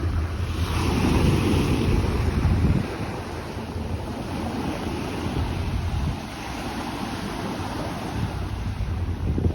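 Waves washing onto a sandy beach, louder for the first few seconds and then a steadier surf, with wind rumbling on the microphone.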